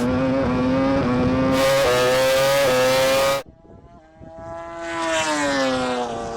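Racing motorcycle engine at full throttle, its pitch climbing and dropping back with each quick upshift. About three and a half seconds in the sound cuts off abruptly; an engine note then returns and falls in pitch as it slows.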